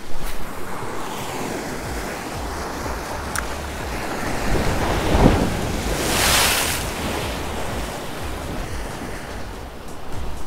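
Small ocean waves washing in and breaking against the shoreline, with wind buffeting the microphone as a low rumble. A wave breaks with a louder hissing splash about six seconds in.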